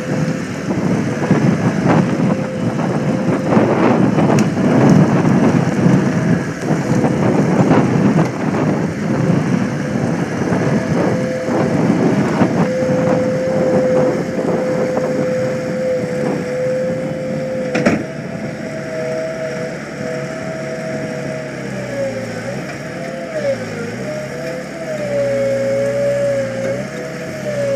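GEHL 6635DXT skid steer loader running hard as it digs into a pile of dirt and brush. Its steady engine note and whine carry over crackling and snapping from the brush through the first part, with a sharp knock about 18 seconds in. Near the end the engine pitch dips and recovers several times under the load of the bucket.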